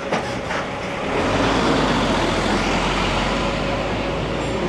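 Road traffic: a vehicle passing close by. Its engine rumble and tyre noise swell about a second in and hold steady.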